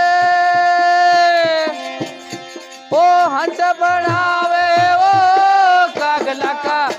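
Rajasthani folk bhajan: a male singer draws out two long held notes, the second starting about three seconds in, over harmonium, with dholak drum strokes between them.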